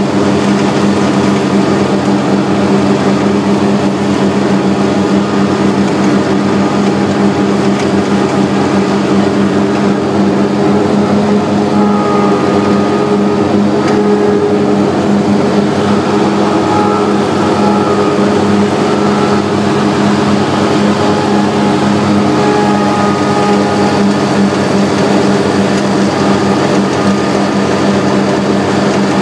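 Grasshopper 718K zero-turn mower running steadily while mowing grass, its engine a constant loud drone.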